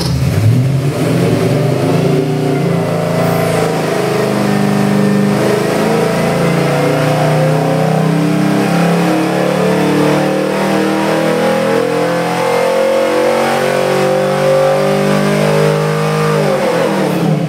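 Fuel-injected 427 cubic inch small-block Chevy stroker V8 on an engine dyno pulling a wide-open-throttle sweep: the revs climb steadily from near idle to about 6,200 rpm, making about 570 horsepower. About a second before the end the throttle closes and the revs fall away quickly.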